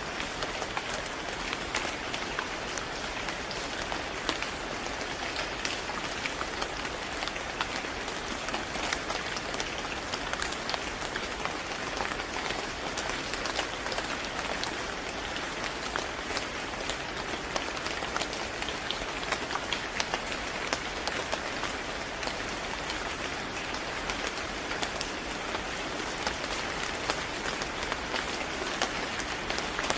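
Steady rain falling on a surface, with many small drop ticks over an even hiss.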